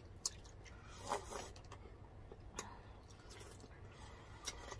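Quiet eating sounds: a few sharp mouth clicks and lip smacks from eating fish head, and a short noisy sip of sour soup broth from a spoon about a second in.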